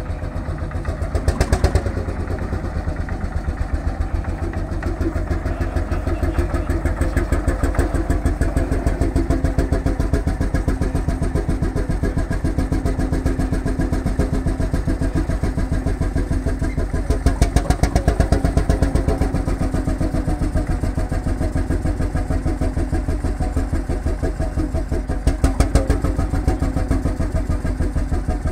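Old Hofherr (HSCS) tractor's single-cylinder hot-bulb engine running with a fast, even thumping beat while the tractor moves slowly. The engine briefly revs up a little three times, about a second in, in the middle and near the end.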